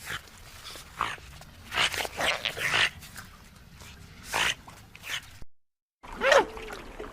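Otters calling with short squeaky chirps and squeals, a quick cluster about two seconds in. After a brief silent break, high-pitched chirping squeaks with a ringing, pitched quality come in near the end.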